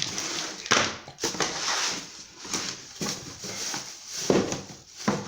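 Handling noise as ceiling-fan parts and their packaging are moved about: rustling, with several sharp knocks and clicks.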